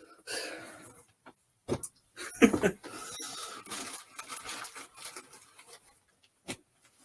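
Packaging rustling and crinkling as fursuit accessories are unwrapped and handled, with a few sharp knocks and one louder short sound about two and a half seconds in.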